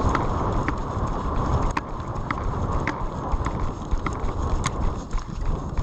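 Footsteps of a player moving at a brisk pace, a sharp click-like step about twice a second, over heavy rumbling wind and movement noise on a body-worn microphone.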